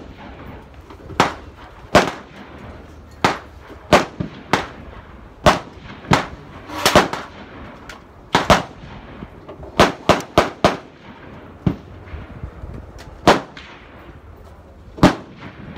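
Gunshots on a shooting range: nearly twenty sharp reports at an irregular pace, of differing loudness, some coming a fraction of a second apart, as several guns fire along the firing line.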